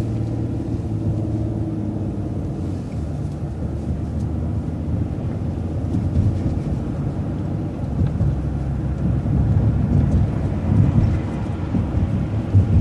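City transit bus running along the road after a right turn: a steady engine drone with road rumble, building slightly after about six seconds.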